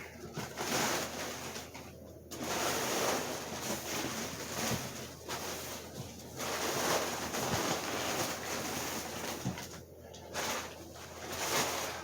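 Packing material rustling and crinkling in uneven bursts as a boxed fan is unwrapped by hand, with brief pauses about two seconds in and again near the end.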